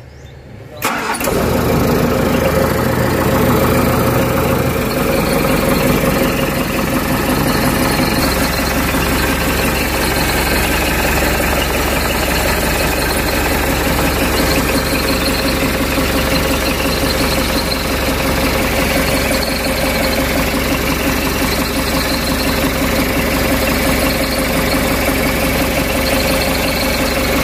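Crawler excavator's diesel engine catching about a second in and then running steadily, warming up so hydraulic oil works through the control valve and purges air after new hydraulic hoses were fitted.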